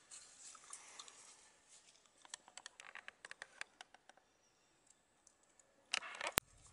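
Faint scattered light clicks and crackles, with a quick run of them about two to four seconds in, then a brief rustle and one sharp click near the end.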